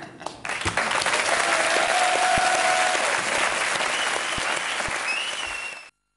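Studio audience applauding, cutting off suddenly near the end.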